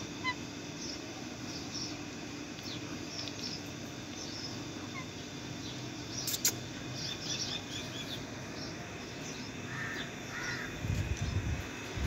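Indian ringneck and Alexandrine parakeets giving short, scattered high chirps, with a couple of louder squawks near the end. A sharp click sounds about halfway through, and low bumps come in near the end.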